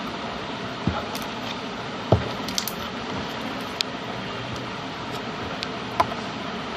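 Slime being squished and worked by hand, with four short sharp pops as air bubbles in it burst, the second the loudest, over a steady background hiss.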